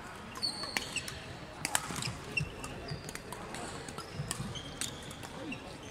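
Badminton rally: rackets striking the shuttlecock in a series of sharp cracks at irregular intervals, with sneakers squeaking briefly on the wooden court floor several times.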